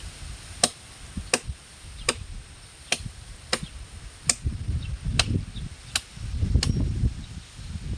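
A blade chopping into wood with about nine sharp, evenly paced strikes, roughly one every three-quarters of a second. Low rumbling noise comes and goes in the second half.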